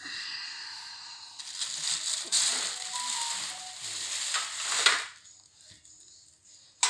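Rustling, crackling handling noise of a sticker being peeled off its backing paper. It lasts about five seconds, grows loudest just before it stops suddenly.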